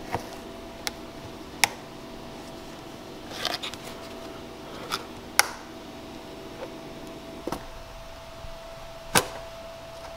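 Sharp clicks and snaps, about half a dozen at uneven gaps, of a knife blade prying a heated Lexus SC300 taillight's plastic housing away from its lens through the softened sealant. A steady low hum underneath cuts off about seven and a half seconds in.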